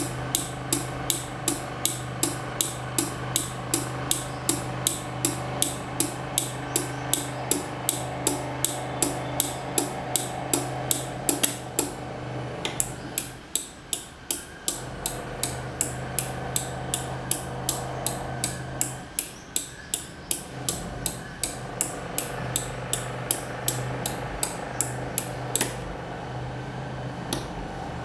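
Relays on an 8-channel DMX512 relay board clicking in test mode: a quick, even run of clicks, about three a second, for the first twelve seconds or so, then fewer, scattered clicks. A steady low hum sits underneath.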